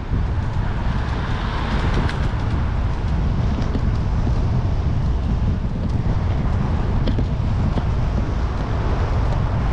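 Steady outdoor rumble of road traffic, with wind on the microphone.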